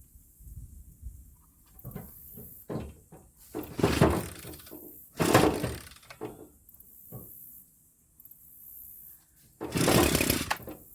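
Recoil starter rope of a two-stroke gas string trimmer being pulled several times, each pull a short loud rasping whir, with pauses between as the engine tries to start.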